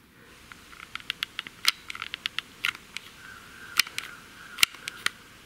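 Stanley mini hot glue gun being worked against a pair of AA batteries: a string of irregular sharp clicks from its trigger feed and plastic tapping on the cells.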